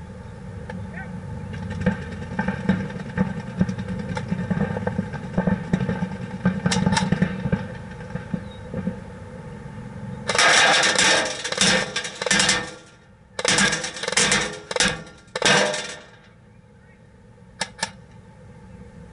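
Airsoft BBs striking a plexiglass target shield close to the microphone in four rapid full-auto strings, a dense clatter of hits. The strings start about halfway through, the first lasting a couple of seconds and the rest short, and two single hits follow near the end. Before the strings there is a steady low rumble with an occasional faint tick.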